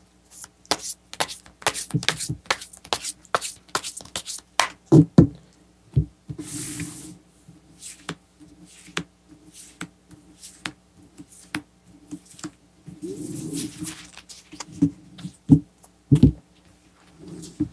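Tarot cards being handled on a cloth-covered table: a quick run of sharp card clicks and slaps as the deck is shuffled, brief swishes as the cards are spread and slid, and a few dull taps near the end as cards are drawn and laid down.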